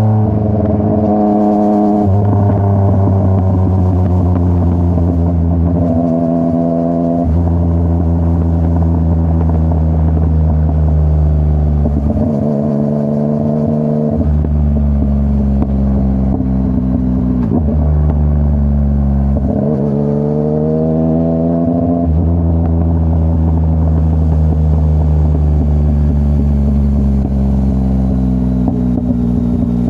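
Yamaha MT-09's CP3 three-cylinder engine running through a full Akrapovic exhaust under way. The engine note holds steady for a few seconds at a time, then shifts up or down in pitch several times, with revs rising past the middle.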